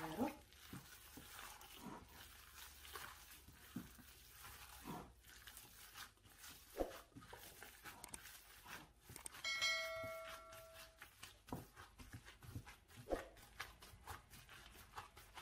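Faint wet squishing and squelching of raw minced meat kneaded by a gloved hand in a glass bowl, in irregular soft squishes. About nine and a half seconds in, a short bell-like notification chime rings steadily for a second or so.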